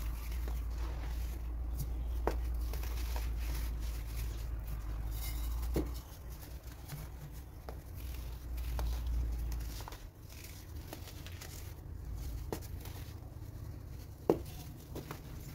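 Hands crushing and crumbling moulded chunks of baking soda into loose powder: a soft, dry crunching broken by several sharp cracks as pieces snap, the loudest near the end. A low rumble runs underneath for much of the first part.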